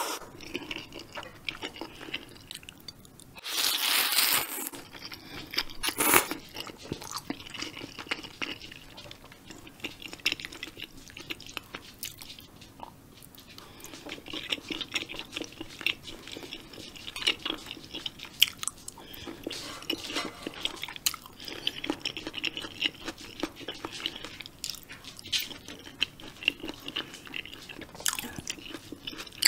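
Close-miked eating sounds: jjamppong noodles slurped and chewed, with a loud slurp about four seconds in, then a steady run of wet chewing clicks and crunches as vegetables and seafood are bitten and chewed.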